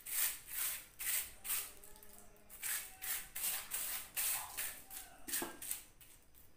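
Thin plastic sheet crinkling and rustling as hands smooth it flat on a countertop, in a quick series of short swishes, about two or three a second.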